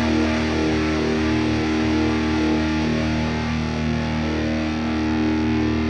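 Background rock music with distorted electric guitar holding steady chords.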